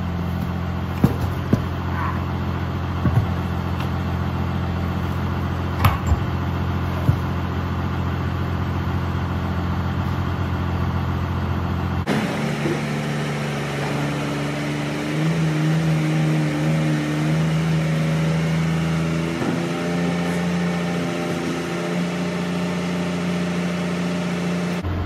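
New Holland 8160 tractor's diesel engine running steadily at low speed, with a few short knocks in the first half. About halfway through the engine sound changes to a higher, wavering pitch as the tractor backs a hitched round baler.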